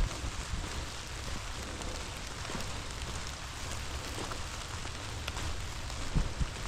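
Steady rain with scattered drops ticking, over a low rumble, with a short thump about six seconds in.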